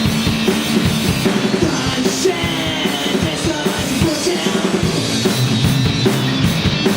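Live rock band playing at full volume, with drum kit, distorted electric guitars and bass.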